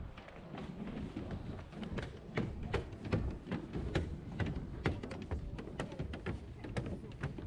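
Footsteps of people walking, sharp taps about two a second, over a low steady rumble.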